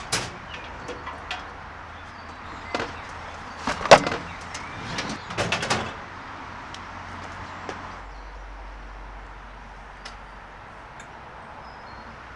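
Metal parcel drop box being worked by hand: clicks from its knob and delivery hopper, a loud metallic clunk about four seconds in, then a short run of clanks and rattles around five to six seconds. After about eight seconds only faint outdoor background remains.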